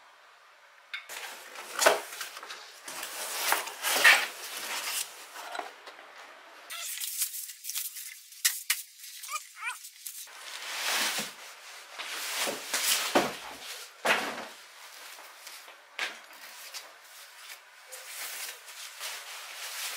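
Plastic wrapping and cardboard packaging being handled: repeated rustling, crinkling and scraping as the packed welder is pulled from its box, with a few brief squeaks about halfway through.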